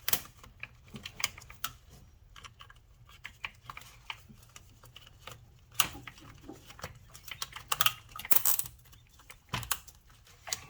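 A heavy-gauge nylon zip tie being pulled tight through a plastic string-trimmer head, its ratchet clicking. Irregular clicks and taps of plastic being handled come between pulls, the loudest about halfway through and again near the end.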